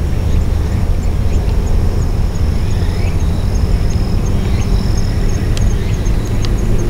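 Steady low outdoor rumble, with a faint, regular high ticking about three times a second above it.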